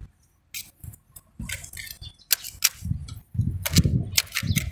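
Scattered sharp metallic clinks and knocks of hand tools and steel parts being handled, with low thumps, coming more thickly in the last second or so.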